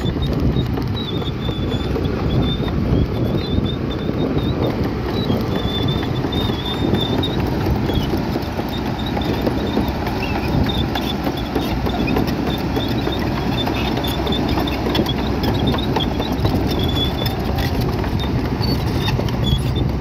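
Bulldozer at work: a continuous diesel rumble with an irregular clatter of tracks and rock, and a faint high squeak on and off.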